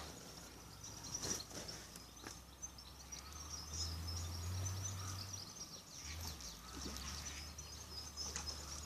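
Small birds chirping and twittering in quick, continuous short notes over a low steady rumble, with a few faint knocks.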